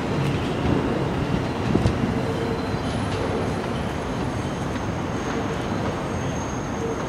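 Rumble of an R160B subway train pulling out along elevated track and moving away, slowly fading into city traffic noise.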